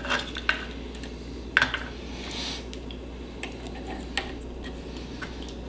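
Scattered small plastic clicks and taps as the hotend cover and parts on a 3D printer's carriage are handled and fitted by hand, over a faint steady low hum.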